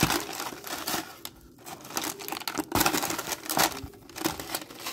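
Parchment paper crinkling as chilled chocolate cookie bark is peeled off it and broken into pieces by hand, in short irregular crackles.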